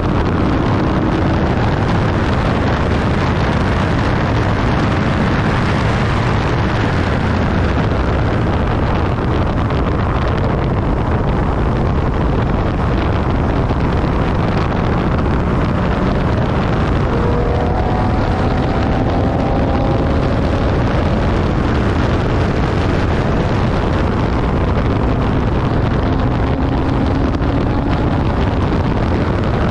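Infiniti G37S's V6 engine driven hard on a race track, mixed with a steady wash of wind and road noise. The engine note rises under acceleration a few times: near the start, about two-thirds of the way through and near the end.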